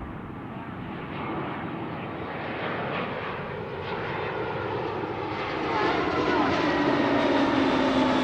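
Airbus A320 jet airliner on approach to land, its engine noise steadily growing louder as it nears, with a low whine that slowly falls in pitch.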